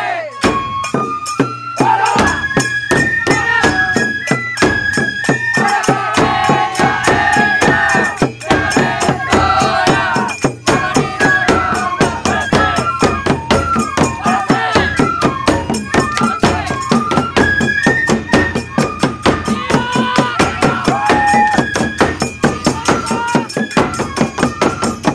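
Matsuri hayashi festival music: bamboo flutes play a stepped melody over a fast, steady beat of taiko drums.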